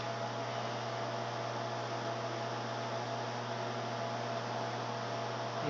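1200-watt LG microwave oven running mid-cook: a steady, even hum.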